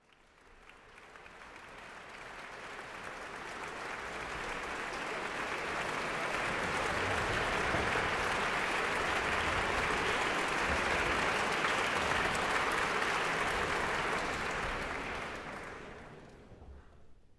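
Concert audience applauding, swelling up over the first few seconds, holding steady, then dying away near the end.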